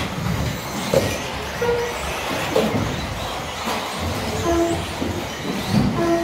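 Radio-controlled buggies racing on an indoor carpet track in a steady din of motors, tyres and hall noise, with a short beep at different pitches a few times.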